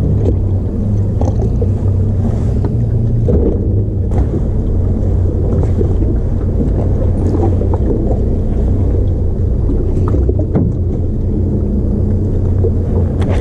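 Boat motor running at idle: a steady low hum with a few faint clicks over it.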